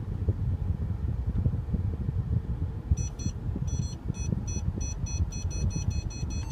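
Parking-sensor warning beeps in the Mercedes-Benz SL550's cabin, starting about three seconds in and then repeating about three times a second as the car reverses into a parallel spot under automatic parking assist. Under them is the low rumble of the car creeping in reverse.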